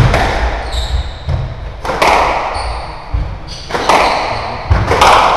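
Squash rally: the hard rubber ball cracks off rackets and walls every second or two, each hit echoing around the court, with low thuds of footsteps and short high squeaks of court shoes on the wooden floor.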